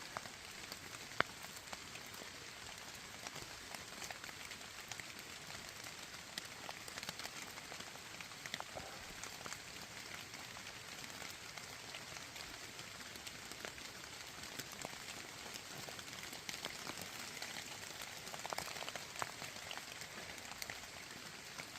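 Light rain falling steadily in a forest, with scattered drops ticking irregularly.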